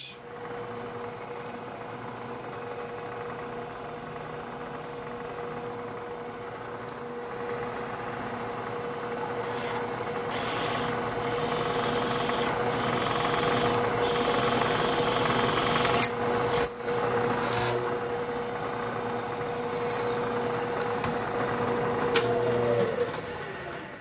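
Bridgeport milling machine spindle running with a steady whine while a drill is fed into angle iron. The cutting noise grows louder through the middle, with a few sharp clicks about two-thirds of the way in. The machine stops shortly before the end.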